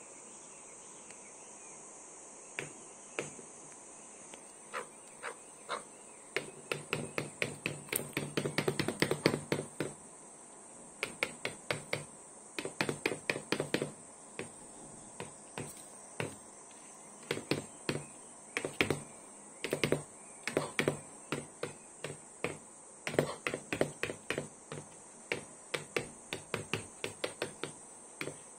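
Chukar partridge pecking at a laptop screen with its beak: runs of quick sharp taps, several a second, in bursts with short pauses between them.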